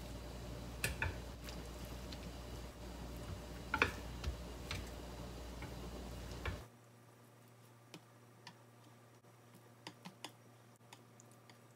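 Wooden cooking chopsticks clicking and tapping against a stainless steel tray while cooked sea bream is picked off the bones: sparse, irregular sharp clicks, louder in the first half and fainter later. A steady low hum underneath cuts off suddenly about two-thirds of the way through.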